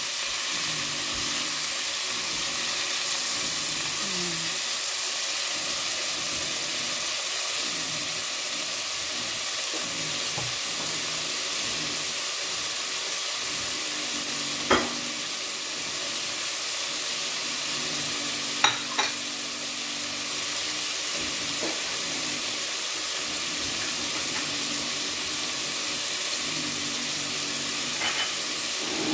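Chunks of beef searing in hot oil in a pot, a steady sizzle as they brown and seal. A few sharp clicks come about halfway through.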